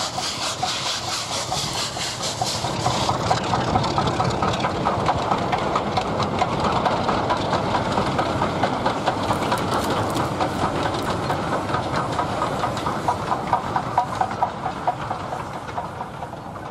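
Steam-hauled train passing, a steady rumble with quick rhythmic beats, fading out near the end as it moves away.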